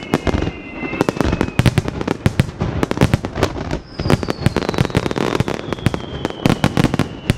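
Dense barrage of fireworks bursting: many sharp bangs in quick succession with crackling in between. A high whistle glides down in pitch and fades about a second and a half in, and another starts about four seconds in and slides slowly down.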